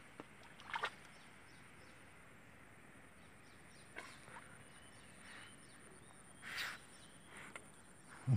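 Quiet river ambience with a few brief water splashes and faint bird chirps, ending with a dull low thump.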